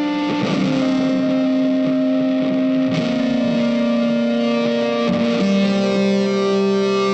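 Background music with long held notes that change pitch every two to three seconds.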